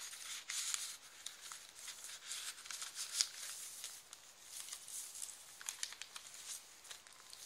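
Paper rustling and crinkling as pages, pockets and tags of a handmade paper journal are handled and turned, in irregular bursts with one sharper crackle about three seconds in.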